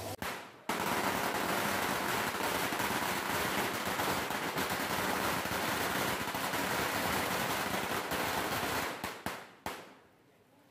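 Firecrackers going off in a rapid, continuous crackle of bangs for about eight seconds, thinning to a few last pops near the end.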